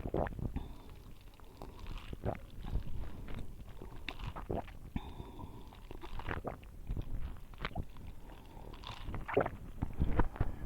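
Close-miked chewing and mouth sounds: irregular wet smacks and clicks over a low rumble, getting louder near the end.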